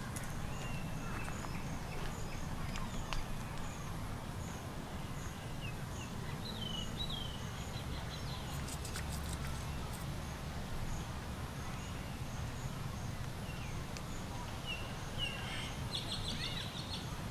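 Forest ambience: a steady low rumble with scattered short high chirps, a faint high pip repeating at an even pace, and a quick pulsed trill near the end.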